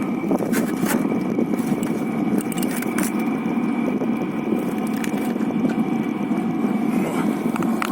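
Chinese diesel air heater running steadily at its 3 kW setting: a low rattling rumble with a thin steady whine above it. A few scattered clicks sound over it.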